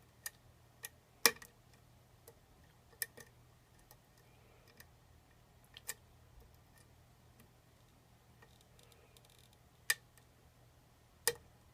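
Lock-picking tools working the pins of a custom challenge lock: a handful of irregular, sharp metallic clicks spread a second or more apart, the loudest about a second in and two more near the end.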